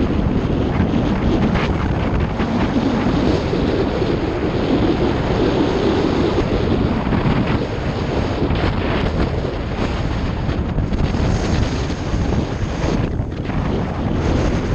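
Steady rush of wind buffeting the microphone while riding a motorcycle at speed.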